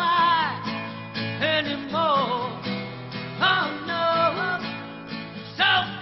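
A man singing with acoustic guitar accompaniment, his voice bending between held notes. The recording is muffled, with little treble.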